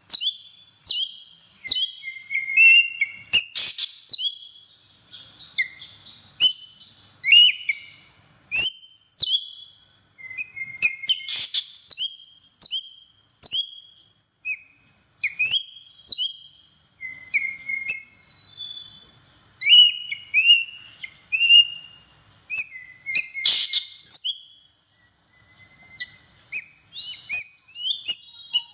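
Drongo singing: a rapid, varied run of short whistled notes that swoop up and down, with sharp clicks among them and brief pauses between phrases.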